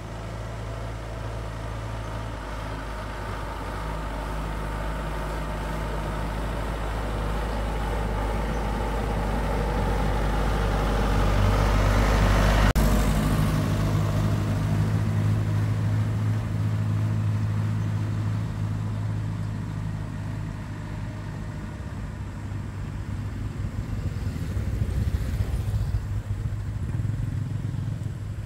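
Engine of a homemade truck running under way. It grows louder toward the middle, its note changes abruptly just after the loudest point, and it eases off, with a smaller swell near the end.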